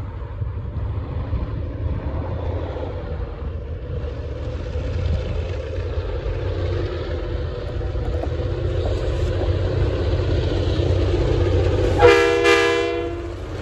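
Two diesel freight locomotives rumbling as they approach, growing gradually louder. About twelve seconds in, the lead locomotive's horn sounds one blast of a little over a second, the loudest sound here.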